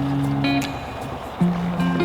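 Background music: held, plucked guitar-like chords changing every half second or so.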